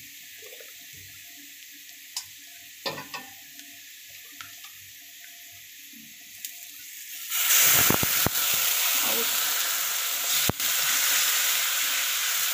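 Sliced onions and garlic frying gently in oil in an iron karahi, with a few short scrapes and taps of a metal spatula. About seven seconds in, water poured into the hot oil sets off a sudden, much louder sizzle that keeps going.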